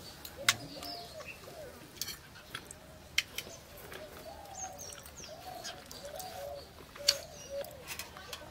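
Birds calling: a steady run of low, repeated cooing notes, with a few faint high chirps. Several sharp clicks stand out above them.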